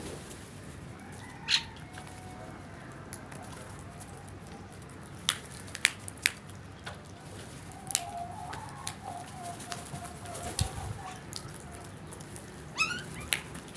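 Birds calling over a quiet outdoor background: scattered short, sharp calls, a drawn-out wavering call from about eight seconds in, and a quick rising run of notes near the end.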